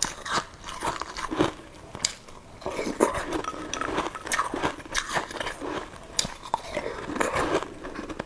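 Close-miked eating sounds: a person chewing and slurping soup from a bowl, with many sharp clicks scattered throughout.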